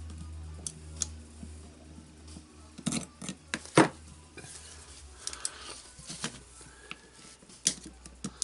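Irregular small metal clicks and scrapes as a utility knife blade prises at the spring ring (circlip) holding a rotary hammer's clutch assembly, the sharpest click about four seconds in.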